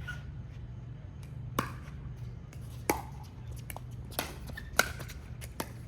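Pickleball paddles striking a hollow plastic pickleball in a rally: four or five sharp pops about a second apart, the loudest near the end. A steady low hum runs underneath.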